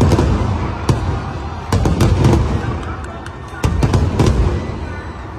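Aerial fireworks going off: volleys of booming bursts at the start, about two seconds in and near four seconds in, each fading away, with sharp bangs and cracks in between.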